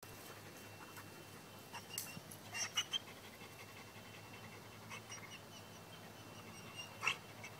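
A German Shepherd cross dog panting, with a few short sharp clicks around two to three seconds in and a louder one about seven seconds in.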